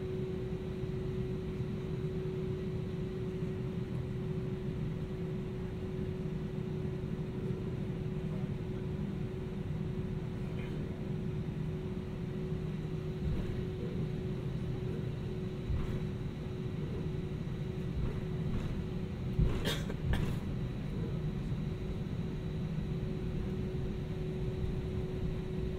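Steady low rumble and hum inside an Airbus A320-200's passenger cabin, with a steady mid-pitched tone over it. Two short knocks come a little past three-quarters of the way through.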